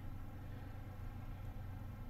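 Quiet room tone: a steady low hum with faint hiss, and no distinct sounds.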